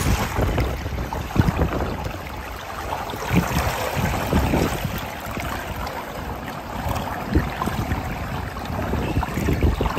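Hot tub water sloshing and lapping as a person shifts and lowers herself in it, with wind gusting on the microphone.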